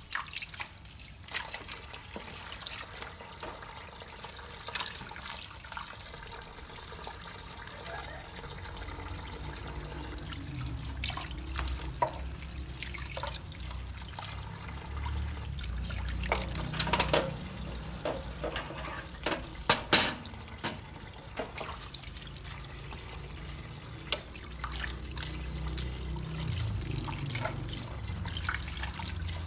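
Water running and splashing into a stainless steel sink as hands rinse and move vegetables in it, with a few sharp knocks and clatters against the sink along the way.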